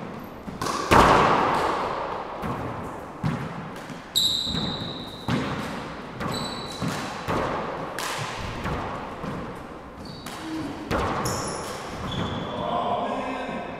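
A four-wall handball rally: the rubber ball is struck by gloved hands and smacks off the walls and hardwood floor, a dozen or so sharp echoing impacts at an uneven pace, the loudest about a second in. Sneakers squeak briefly on the floor several times as the players move.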